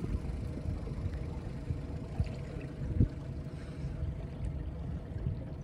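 Water lapping and sloshing against a small boat's hull, with an uneven low rumble and a single thump about three seconds in.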